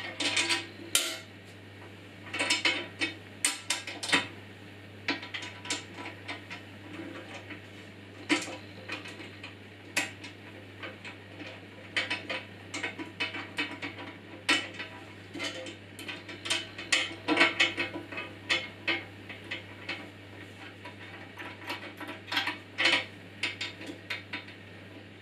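Irregular metallic clicks and clinks of small parts and hand tools being handled against a Parkside bandsaw's table and housing during assembly, over a faint low steady hum.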